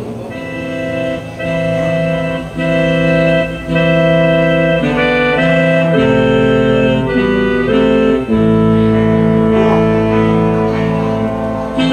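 Slow, solemn organ-style music on an electronic keyboard, with long held chords that change every second or two. It is mourning music played for a minute of silence at a funeral.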